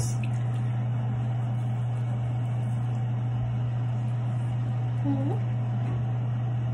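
Steady low hum, unchanging and even, as from a fan motor or electrical hum in a small bathroom.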